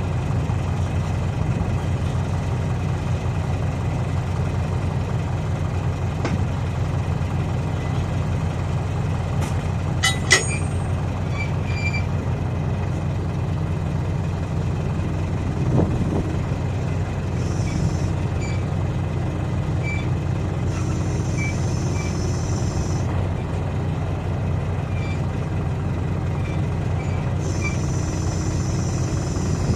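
A large engine idling steadily throughout. A sharp metallic clank comes about ten seconds in and a duller knock around sixteen seconds. In the second half there are several short spells of air hissing.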